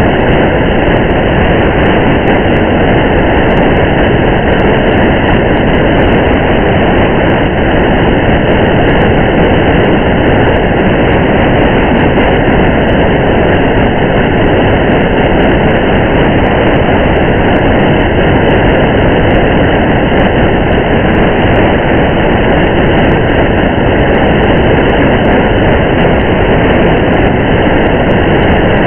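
Steady, muffled rumble of a car driving in the rain: tyre and road noise mixed with rain, unchanging throughout.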